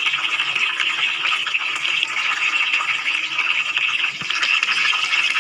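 Hot oil sizzling steadily with small pops around a whole chicken deep-frying in a pot.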